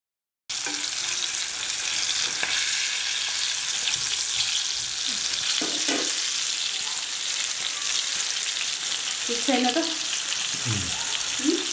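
Breaded chicken pieces frying in hot oil in a wok, a steady crackling sizzle that starts suddenly about half a second in.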